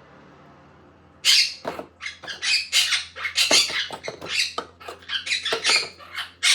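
A pet bird calling in a rapid, loud series of sharp calls, starting about a second in.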